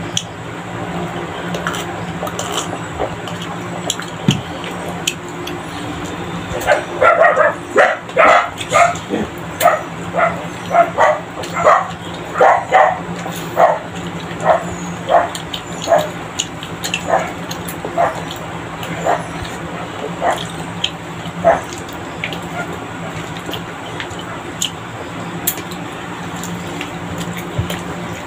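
A dog barking over and over, a long run of about twenty barks that come quickest and loudest at first, then space out and fade, over a steady low hum.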